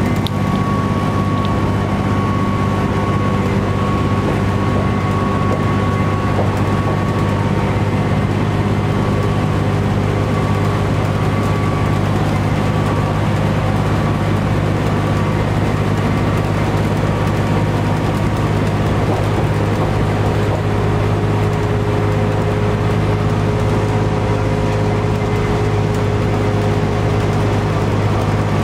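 A 1998 New Flyer D40LF transit bus cruising at a steady speed, heard from inside. Its Cummins ISC diesel engine and drivetrain make a steady low drone over road noise.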